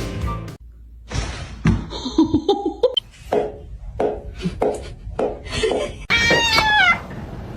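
A cat meowing near the end, one call falling in pitch, after a string of short, sharp household sounds.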